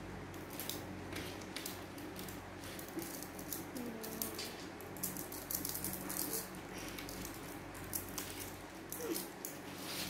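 Small magnetic balls clicking and snapping together in quick, irregular taps as they are joined by hand into a bracelet.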